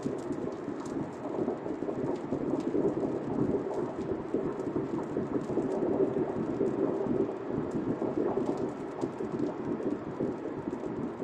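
Car cabin noise while driving on a wet highway in the rain: a steady, fluctuating rumble of tyres on wet pavement and rain on the car, with faint scattered ticks of raindrops.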